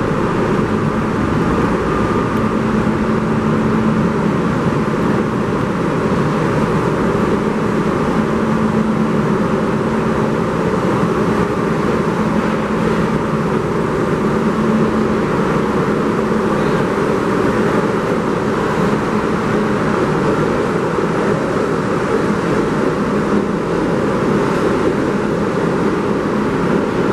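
New York City subway train running at speed: a steady rushing rumble of wheels and air, with a faint low hum that comes and goes.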